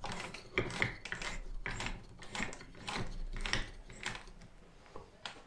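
Ratcheting trigger clamp being squeezed tighter, again and again: a run of sharp ratchet clicks, roughly two a second, as it pulls the glued frame corners together.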